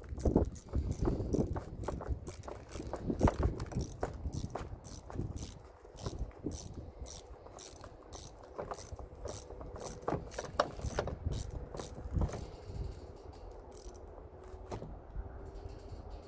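Hand ratchet wrench clicking steadily, about three clicks a second, as a Loctite-coated stud bolt is wound into the new AC compressor. The clicks thin out near the end.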